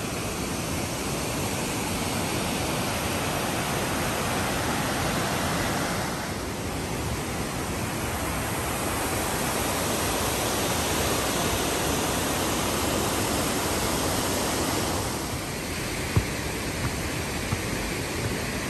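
Steady rush of falling water from Dingmans Falls, a 130-foot waterfall. Its tone shifts slightly about six and fifteen seconds in, and there is a single brief knock near the end.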